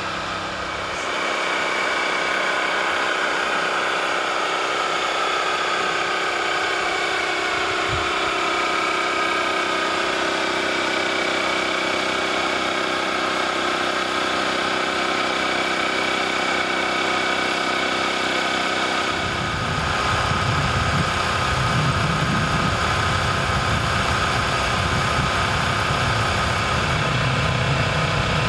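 Avro Vulcan jet engines running with a steady high whine that drifts slightly in pitch; about two-thirds of the way through a deep rumble joins in and the sound grows louder.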